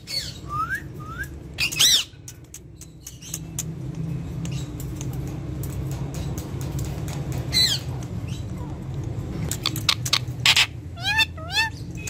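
Indian ringneck parakeet giving short squawks and chirps: a couple of rising calls near the start, a sharp call midway and a quick run of chirps near the end, over a steady low hum.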